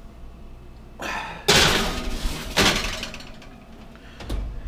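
Oven door being worked: a scrape, then two loud bangs about a second apart with a short metallic ring, and a lighter knock near the end.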